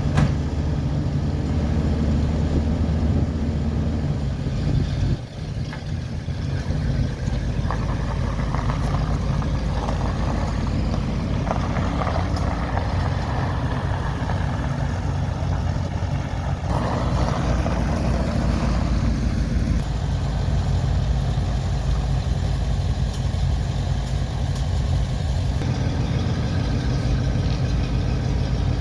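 1977 Chevrolet Corvette's 350 small-block V8 running steadily at idle after a cold start. Its sound dips briefly about five seconds in.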